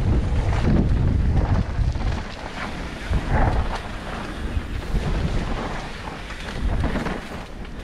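Wind buffeting the microphone of a mountain bike's camera riding fast down a dirt trail: a heavy low rumble that rises and falls, easing about two seconds in and again near the end.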